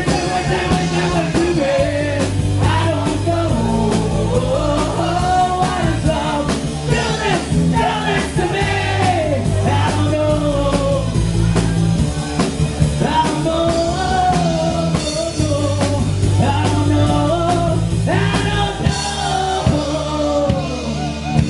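Live rock-and-roll band playing, a bending lead melody line over steady bass and drums.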